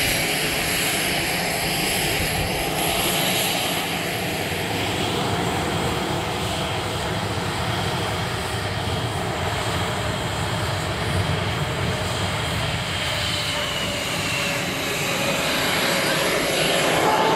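EA-18G Growler's twin F414 turbofan engines running steadily: a dense jet rumble with a thin high whine. A tone slides slowly downward past the middle, and another rises near the end.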